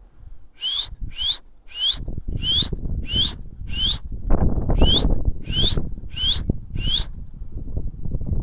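A person whistling a quick run of about ten short, sharp rising whistles, evenly spaced, stopping about a second before the end: the whistle a pigeon keeper uses to drive his flock up and keep it flying. Wind buffets the microphone, loudest from about two seconds in.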